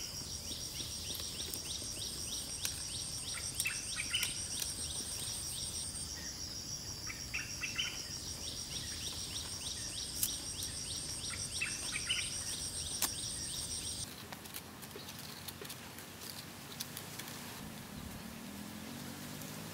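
Jungle insects trilling in a high, rapidly pulsing, steady chorus, with short bird chirps and a few sharp clicks. About two-thirds of the way through it all cuts off abruptly, leaving a quieter even hiss.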